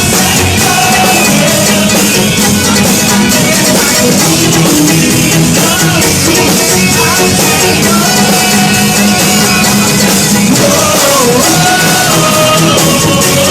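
A live church worship band playing a loud, steady praise song, with singing over the instruments.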